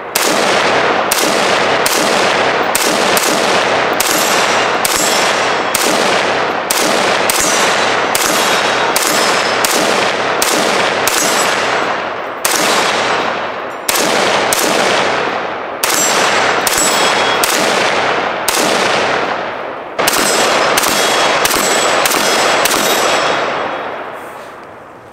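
Rapid semi-automatic fire from a Bear Creek Arsenal 20-inch AR-15 in 5.56 NATO: about thirty shots, one to two a second with a few short pauses, each cracking and echoing away. Steel targets ring after hits.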